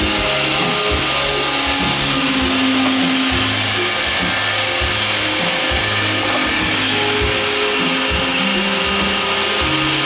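iRobot Roomba 530 robot vacuum running across a hard floor: a loud, steady whir of its vacuum motor and brushes, with short knocks now and then.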